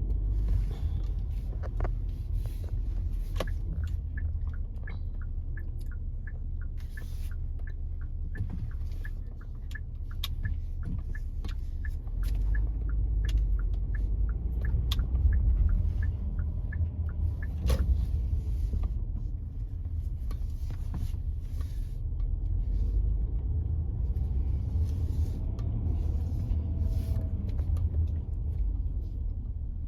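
Low rumble of a car being driven slowly, heard from inside the cabin. For about twelve seconds in the middle, the turn-signal indicator clicks steadily at roughly two ticks a second.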